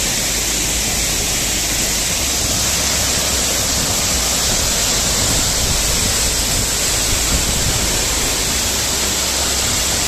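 Waterfall: a steady, loud rush of water falling down a rock face, heard close up.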